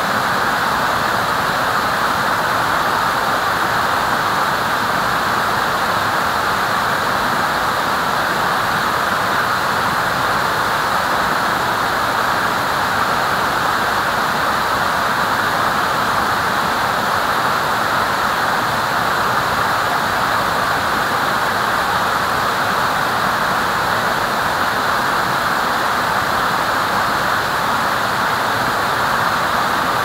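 Waterfall: falling water making a steady, unbroken rush.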